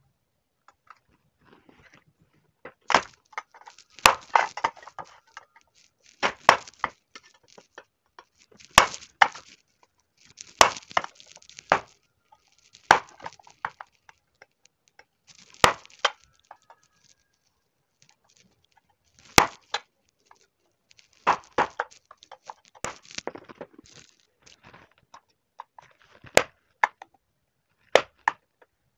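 A screwdriver hammered through the thin metal end of a tin can to punch holes: sharp metallic knocks, singly or in quick runs of several, every one to three seconds.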